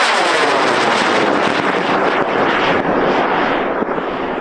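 High-power rocket motor burning as the rocket climbs away: a loud, steady rushing roar that fades gradually toward the end.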